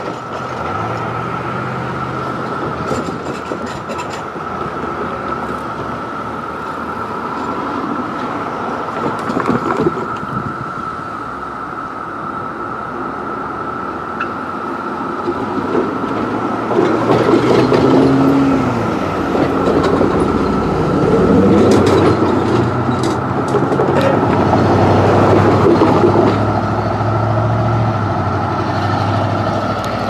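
Periodical cicada chorus: one steady, even high drone from many cicadas together. In the second half, a louder low engine rumble from a passing vehicle rises under it.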